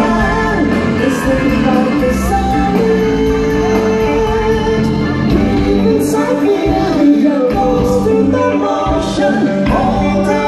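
A live band playing loud amplified music with a lead singer, heard from among the audience in a large concert venue: drums and cymbals keep a steady beat under sustained keyboard and guitar notes.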